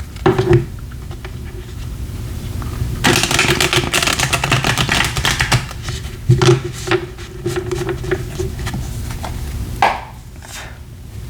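A deck of tarot cards being shuffled and handled: a quick run of dense clicking and slapping from about three to six seconds in, then scattered taps of cards.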